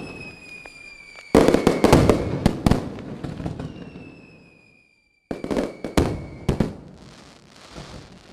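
Fireworks sound effect: clusters of sharp bangs and crackling, with a faint falling whistle, in two rounds and a brief dead gap between them, fading to light crackle near the end.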